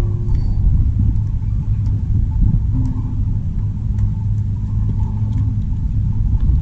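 Steady low rumble, unbroken and at an even level throughout.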